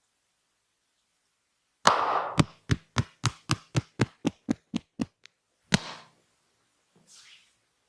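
Percussive massage strikes on the body: a loud slap, then a quick, even run of about a dozen sharp knocks at about four a second, and one more loud slap near the end.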